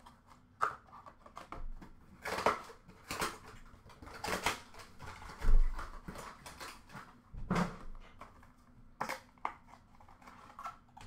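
Hands unwrapping a hockey card box: plastic wrapping and a small cardboard box rustling and crinkling in short, separate bursts, with a dull thump about five and a half seconds in, the loudest sound.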